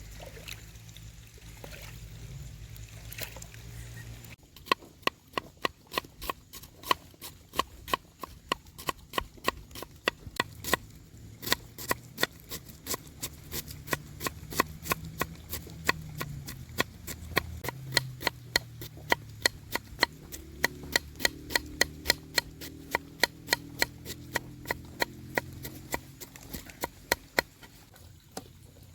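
A knife chopping steadily on a cutting board, about four sharp strokes a second, starting about four seconds in and running until near the end.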